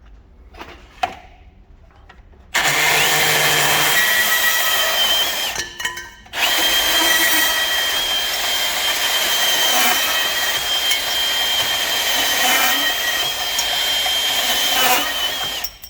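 Milwaukee M18 Fuel brushless portable band saw running and cutting through copper, with a steady high whine. A click about a second in, then the saw starts, stops briefly after about three seconds, and runs again until just before the end.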